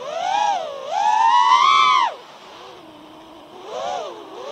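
FPV quadcopter's brushless motors (iFlight XING 2208 1800KV on 6S) whining, the pitch swelling and falling with the throttle. A short rise at the start is followed by a longer, higher climb that cuts off sharply about two seconds in. The motors drop to a low whine, then give another quick burst near the end.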